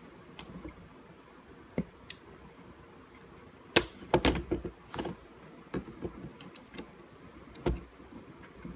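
Scattered clicks and knocks of small tools and parts being handled on a workbench during desoldering, with a busier run of sharper knocks about four seconds in.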